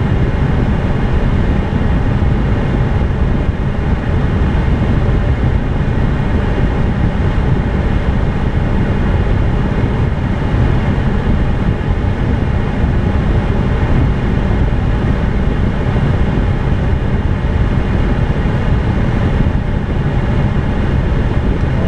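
Steady aircraft interior noise of an Airbus A321 on final approach: engine and airflow noise, strongest in the low range, with a faint steady high-pitched hum over it.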